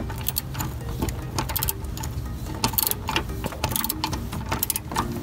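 Hand ratchet and socket clicking in quick runs of pawl clicks as a bolt is turned, with short pauses between strokes.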